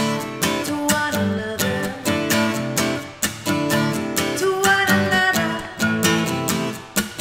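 Acoustic guitar strummed in a steady rhythm, playing the chords of a solo acoustic song.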